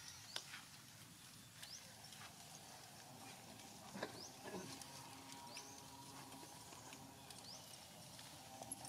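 Near silence: quiet outdoor ambience with a faint, short, high rising chirp about every one and a half seconds and a soft click about four seconds in.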